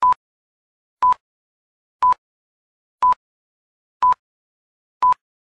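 Film-leader countdown beeps: a short, single-pitch beep once a second, six times, one for each number of the countdown.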